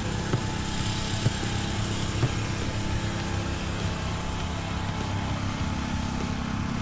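A motor running steadily with an even low hum. Three faint knocks in the first few seconds come from hatchets splitting birch firewood.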